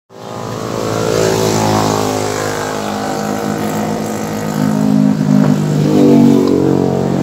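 Motorcycle engine running as it passes along the road, its note shifting slightly and getting louder toward a peak about six seconds in.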